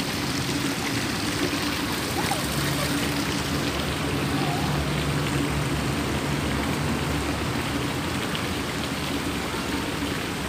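Steady rush of running pool water, with a low steady hum underneath.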